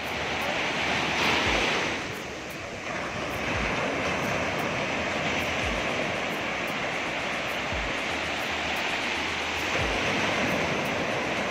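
Sea surf breaking and washing up a sandy shore: a steady rush that swells as waves break, about a second in and again near the end.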